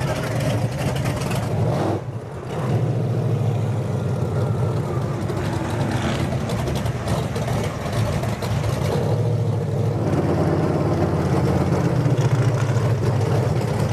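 Engine of a big lifted mud truck running at low speed as it drives, heard from aboard the truck, with a short dip in level about two seconds in.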